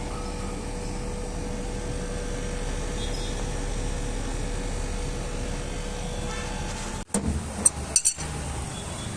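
Steady mechanical hum with a low rumble and a faint steady tone, cut off abruptly about seven seconds in, followed by a few sharp clinks.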